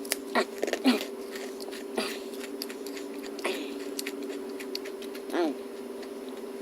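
Close-miked chewing and mouth clicks of someone eating a cheesestick, with a few short voiced sounds and a steady low hum underneath.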